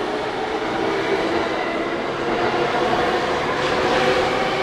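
JR E231-500 series electric commuter train running past a station platform: steady wheel-on-rail noise with a few faint steady tones under it.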